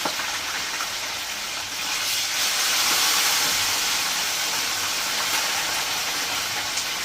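Fish frying in hot oil, a steady sizzle that grows louder about two seconds in and stays up.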